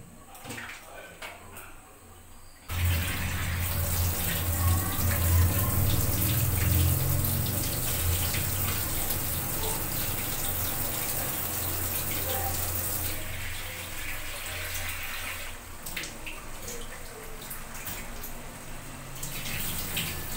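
Kitchen tap turned on about three seconds in, water running hard into a stainless steel sink, then running more lightly with clinks of utensils near the end.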